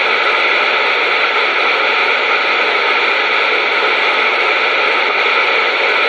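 Radio receiver putting out loud, steady static hiss between transmissions, with a faint steady tone in it.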